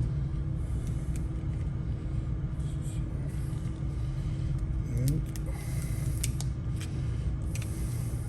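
Steady low hum with a faint steady tone underneath. From about five seconds in come scattered short scrapes and clicks of vinyl wrap film being handled and worked by hand.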